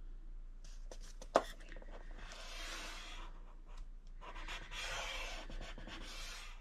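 A scoring tool is drawn along paper in the groove of a scoring board, scoring a fold line for an envelope flap. There is one sharp click about a second and a half in, then two scraping strokes, the second one longer.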